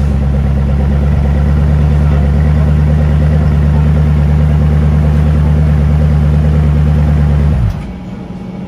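Koenigsegg Agera RS's twin-turbo V8 idling steadily at a constant pitch. About seven and a half seconds in the idle cuts off suddenly, leaving a quieter low rumble.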